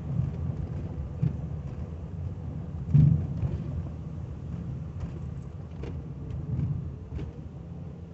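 Low, steady rumble of a 1985 Cadillac Cimarron's engine and tyres heard from inside the cabin while driving slowly. A few thumps come through, a light one about a second in and the loudest about three seconds in.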